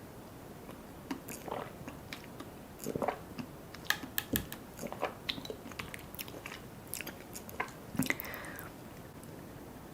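Close-miked chewing and biting of soft, sticky desserts, with many wet mouth smacks and clicks. Quieter for about the first second and the last second.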